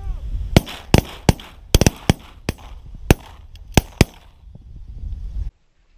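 A volley of shotgun fire from several hunters: about ten sharp shots in quick succession over three and a half seconds, some nearly overlapping, with a low rumble of wind on the microphone. The sound cuts off abruptly about five and a half seconds in.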